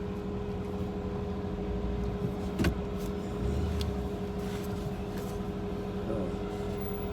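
Truck engine running steadily, heard from inside the cab, with a couple of short sharp clicks about a third and halfway through.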